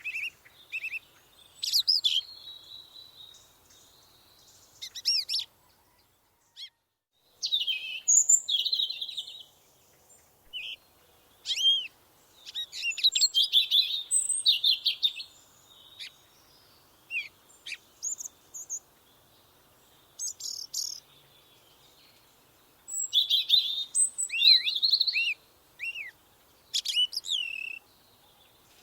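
Woodland songbirds singing and calling: bursts of quick chirps, trills and short rising and falling whistles, with short pauses between phrases.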